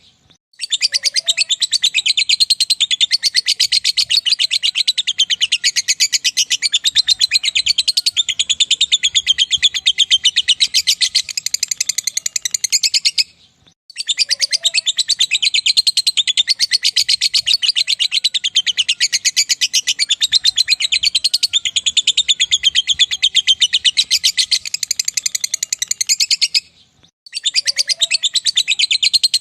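Lovebird singing its long 'ngekek' chatter: unbroken runs of very rapid, shrill notes, each run about thirteen seconds long, broken by short pauses about a third and near the end, the same run repeating after each pause.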